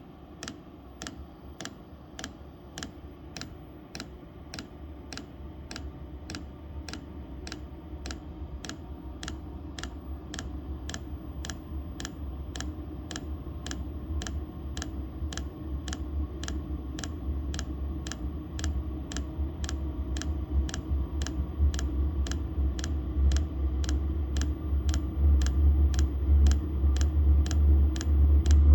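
Chinese diesel heater's fuel dosing pump ticking steadily, about two clicks a second, as it feeds fuel to the burner during start-up. Under it, a low rumble from the heater grows steadily louder as it comes up to running.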